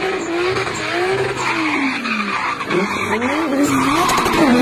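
Drift car sliding sideways: its engine revving up and down over a steady squeal of spinning tyres.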